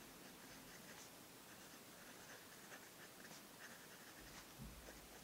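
Parker Sonnet fountain pen nib scratching faintly across paper in short, uneven strokes as words are written, with a soft low bump about four and a half seconds in.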